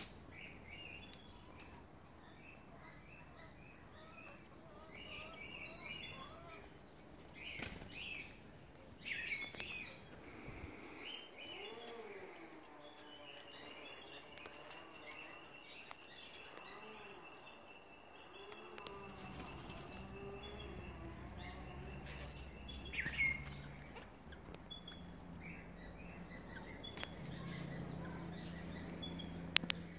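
Mixed garden birdsong. There are many short high chirps, then a long steady high whistle through the middle, and a few low calls that rise and fall.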